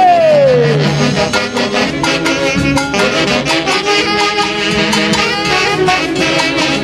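Live orchestra music with brass and a steady percussion beat, played by a Peruvian band. A man's shout falls in pitch over the first second.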